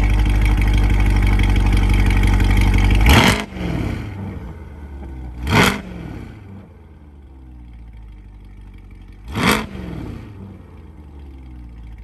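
Chevrolet C8 Corvette's 6.2-litre V8 running loud through an NPP exhaust with sport catalytic converters: a fast steady idle, then a quick throttle blip about three seconds in after which it idles much quieter, and two more short revs that fall back to idle, near the middle and about three seconds later.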